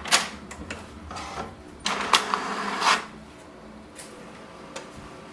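HP DeskJet 4255e all-in-one printer starting a copy job: a click, then about a second of mechanical whirring and clatter roughly two seconds in, then a quieter steady running with a couple of light ticks.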